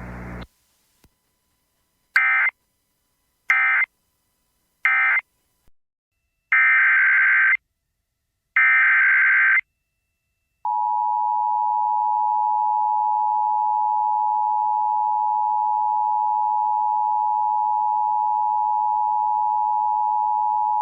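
Emergency Alert System tones. First come three short bursts of warbling SAME digital data, the end-of-message code, then two longer one-second SAME header bursts. About a second later the steady two-tone EAS attention signal (853 and 960 Hz) starts and holds for about ten seconds.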